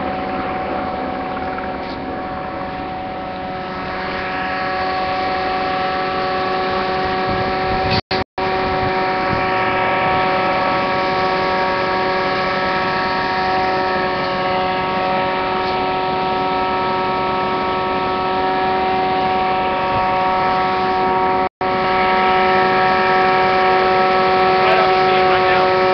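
Steady mechanical drone made of several held tones, like engines or machinery running without change. The sound cuts out for an instant twice.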